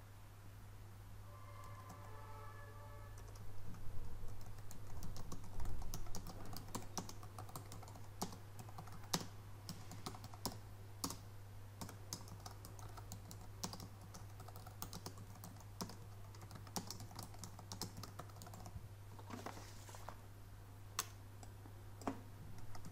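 Typing on a computer keyboard: irregular key clicks, starting a few seconds in, over a steady low hum.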